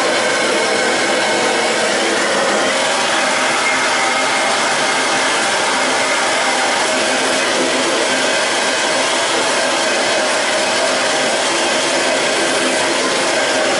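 Wet-blast cabinet nozzle spraying compressed air and water-media slurry onto an engine crankcase: a loud, steady hiss that does not let up.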